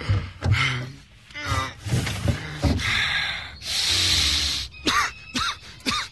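A person's short, irregular gasps and breaths, several in a row, with a longer breathy stretch about four seconds in.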